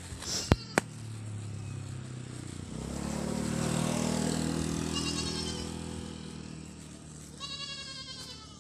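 Goat bleating in two short, wavering calls, a faint one about halfway and a louder one near the end. Two sharp clicks sound near the start, and a low engine hum of a passing vehicle swells and fades through the middle.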